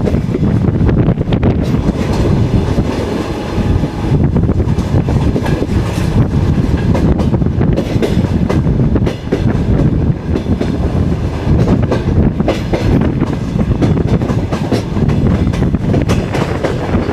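Passenger train carriage running along the line, heard from its window: a steady loud rumble with wheels clicking over the rail joints.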